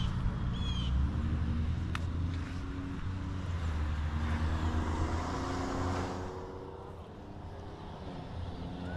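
A motor vehicle's engine running nearby, a steady low hum with road noise, that fades away about six seconds in.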